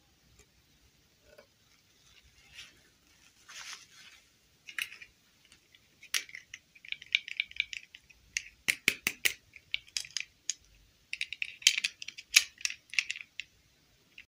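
Small plastic dolls and a rubbery clip-on doll dress handled in the fingers: scattered plastic clicks and crinkly rustling, with a quick run of clicks about halfway through.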